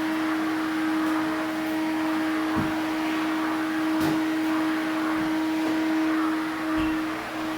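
Household vacuum cleaner running steadily with an even motor hum, with a few light knocks over it.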